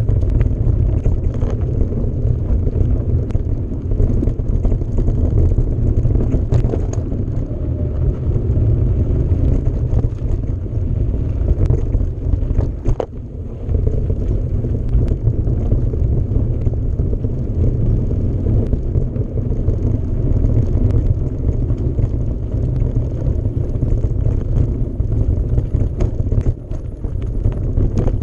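Wind buffeting the microphone of a camera riding along on a moving mountain bike: a steady, loud low rumble, with scattered short knocks and rattles from the bike over the ground.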